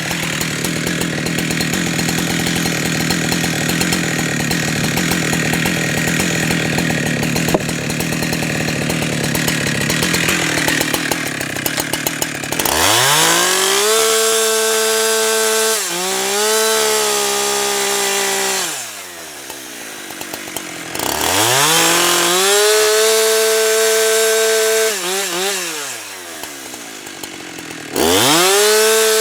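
Husqvarna 365 two-stroke chainsaw with a 24-inch bar cutting through a log under load for about twelve seconds. It is then revved to full throttle three times, each rev rising quickly, holding a steady high whine for a few seconds and dropping back to idle.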